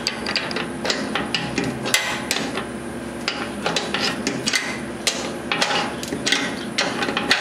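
An open-end wrench clinking on a snowblower's skid-shoe bolt and nut as the bolt is tightened, with the wrench lifted off and refitted for each short turn. Sharp, irregular metal clicks come a few times a second over a faint steady hum.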